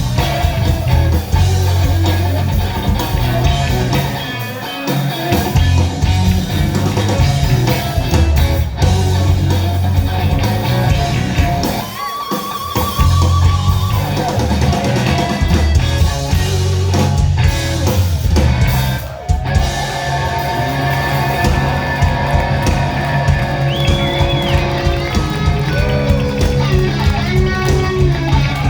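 Live electric blues band: an electric guitar solos over bass and drums in a slow blues, with long held notes that waver with vibrato.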